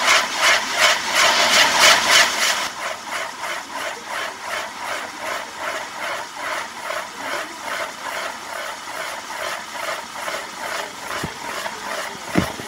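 Fireworks burning on a castillo firework tower: a loud hiss that pulses about two to three times a second, strongest in the first couple of seconds, then steadier. A single sharp pop near the end.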